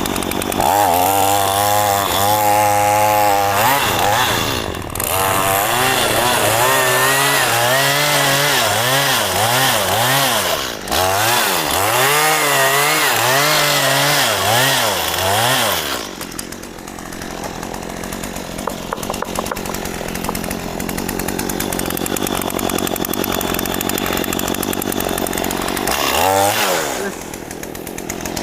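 Gasoline chainsaw cutting into a mahogany tree at full throttle, its engine speed dipping and recovering again and again as the chain bites into the wood. About halfway through it drops back to a lower, rougher run, with one short rev near the end.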